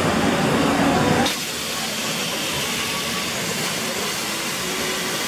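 Steam hissing steadily from an 1881 Baldwin steam locomotive as it vents steam low at its side, starting abruptly about a second in. Before the hiss starts there is a louder low rumble.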